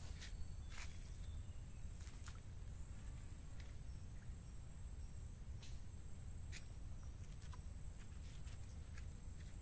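Outdoor ambience: a steady high-pitched insect drone over a low rumble, with scattered light clicks.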